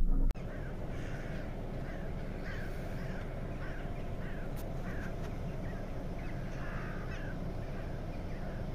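A flock of crows cawing over and over, many short falling calls about two a second, above a steady low rumble. The crows are gathering and calling over a freshly shot crow.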